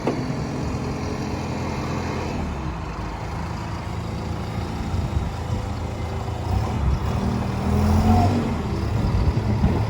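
Diesel engine of a Terex TLB840R backhoe loader running while the hoe is worked. It picks up about eight seconds in as the hydraulics take load.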